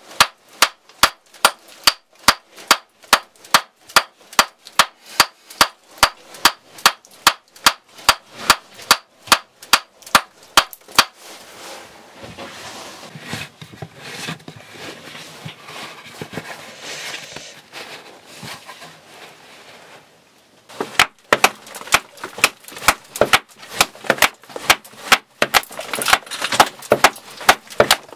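A tool striking rock while digging in a cave, in sharp, evenly spaced strikes about two and a half a second. About eleven seconds in the strikes stop and a rustling, scraping noise of loose rubble takes over. After about twenty seconds the strikes come back, faster and less even.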